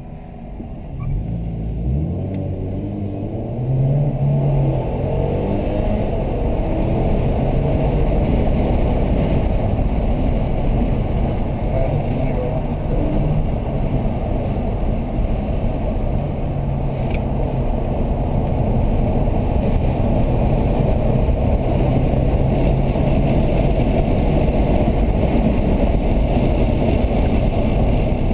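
Inside the cabin of a 2008 Subaru Legacy GT: engine and road noise. The pitch of its turbocharged 2.5-litre flat-four rises as the car accelerates, from about one to four seconds in, then holds steady at speed.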